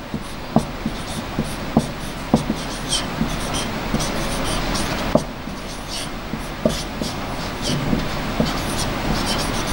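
Marker pen writing on a whiteboard: irregular short taps and brief squeaks of the tip as letters are drawn, over a steady background hiss and hum.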